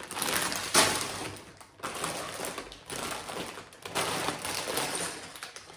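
Plastic bags of Lego bricks crinkling, with the bricks inside rattling, as they are handled and shuffled on a table. The loudest rustle comes about a second in.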